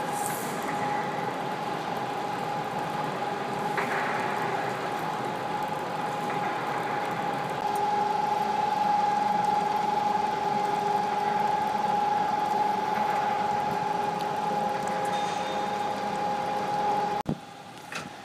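A motor running steadily with a constant whine. It gets a little louder about halfway and cuts off suddenly near the end.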